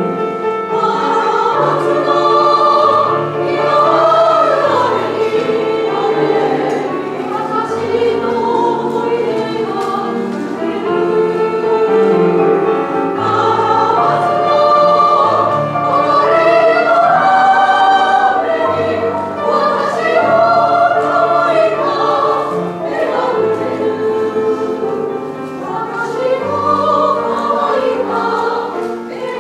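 Women's choir singing in parts with piano accompaniment, sustained phrases with no break.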